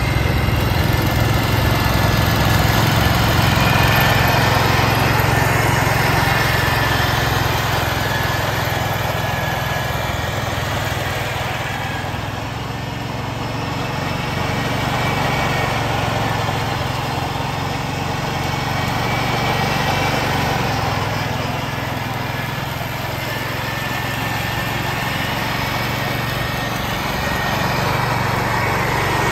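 1969 Ford 140 garden tractor's engine running steadily under load with its mower deck spinning, mulching dry leaves. The loudness swells and dips, lowest about halfway through.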